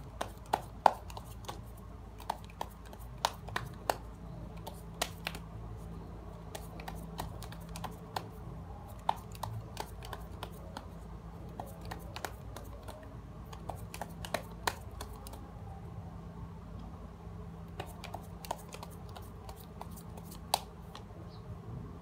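Light clicks and taps at irregular intervals, over a low steady hum.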